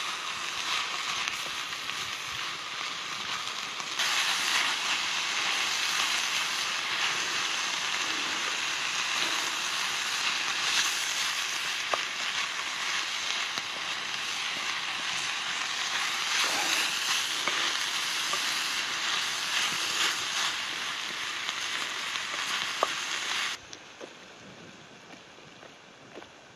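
Sausage and vegetables sizzling as they fry in butter in a hot pan over a campfire, a steady hiss. It gets louder about four seconds in and breaks off suddenly near the end, leaving faint outdoor background.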